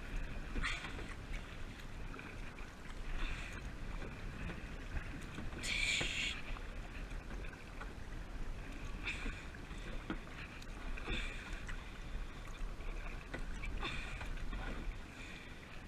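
Kayak paddle strokes splashing in shallow water about every two and a half to three seconds, the loudest about six seconds in, over a steady low rumble of wind on the action-camera microphone.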